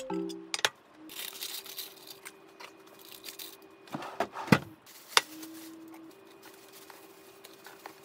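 Printed paper liner crinkling and rustling as it is fitted into a stainless steel bento box with fried rice, then a few sharp clicks and knocks against the box.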